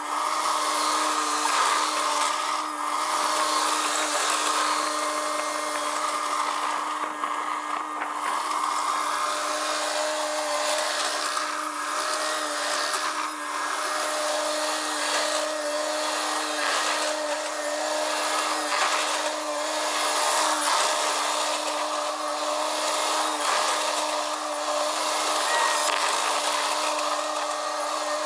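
Bobcat T630 compact track loader running steadily at working engine speed, a constant whine over engine and hydraulic noise, with faint knocks as it works gravel.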